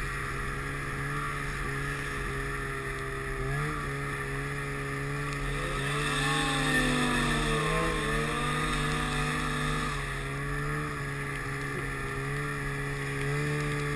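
Snowmobile engine running steadily under way. A second snowmobile's engine swells and changes pitch about six to eight seconds in as it comes close.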